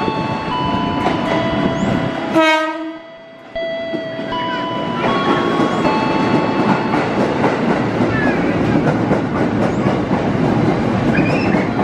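A 205-series electric commuter train passing close by. It gives a short horn blast about two and a half seconds in, steady whining tones run through the passing, and wheels clack over rail joints in the second half.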